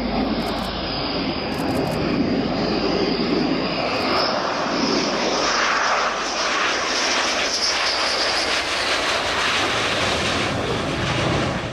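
Twin Snecma M88 turbofans of a Dassault Rafale fighter on landing approach: steady jet engine noise with a high whine that rises slightly about four seconds in. It cuts off sharply near the end.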